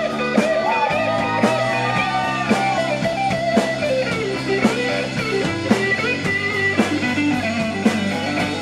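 Rock music: an electric guitar plays a lead line with bent, gliding notes over held bass notes, with a drum hit about once a second.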